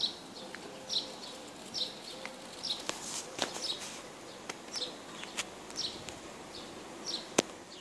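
A bird chirping over and over, one short high chirp about once a second, with a few sharp clicks among them.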